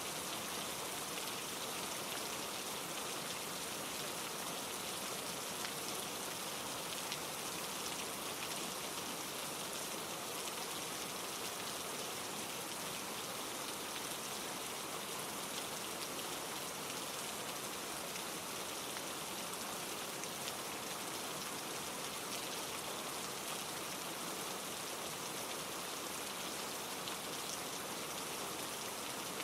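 Steady rain falling, with many fine drop ticks over an even hiss, mixed with the rush of a mountain stream tumbling over rocks.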